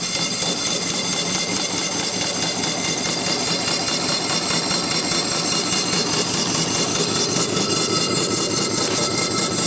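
Small single-cylinder vertical steam engine (1.870-inch bore, 2-inch stroke) running steadily on steam from its wood-fired vertical boiler: a fast, even beat of exhaust chuffs over a hiss of steam. Its cylinder has just been lubricated with steam oil.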